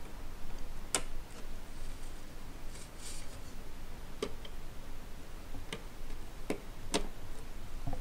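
Small plastic fan-cable connectors being handled and pushed onto motherboard CPU fan header pins, giving several scattered sharp clicks.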